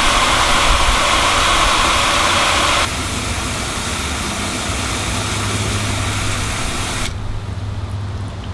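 Garden hose spray nozzle jetting water into a pot as it fills, a steady hissing splash. It drops in level about three seconds in and cuts off near the end as the nozzle is shut off, leaving a low hum.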